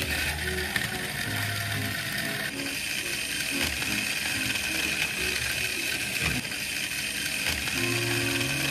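Battery-powered toy stand mixer running, its small geared motor turning the beater with a steady high whine and a mechanical gear sound.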